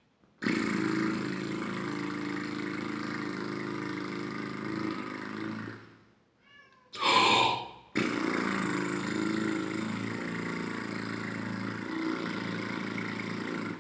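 Two long lip trills, the lips blown loose so that they flutter with a steady, low, purring buzz, each held about five seconds (eight beats), with a quick breath in through the mouth between them. This is a brass player's lip-flexibility warm-up done without the instrument.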